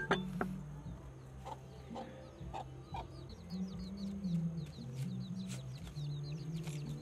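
Chickens clucking, with small birds chirping in quick, repeated high notes. Light rustles and clicks of leafy greens being handled on a bamboo tray, with one sharp knock right at the start.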